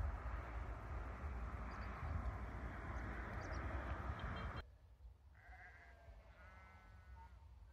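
Wind rumbling on the microphone, cutting off suddenly after about four and a half seconds; then, in quieter air, a sheep bleats twice with short, wavering calls.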